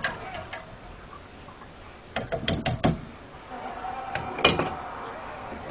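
Kitchenware knocking and clattering: four quick sharp knocks a little over two seconds in, then one more about halfway through.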